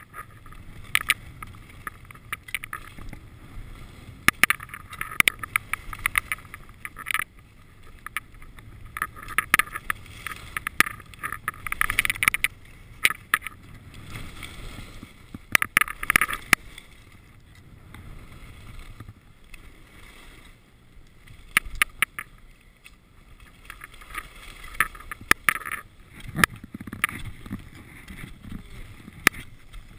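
Skis scraping and hissing over groomed, packed snow, in irregular surges as the skier turns, with many sharp clicks and rattles.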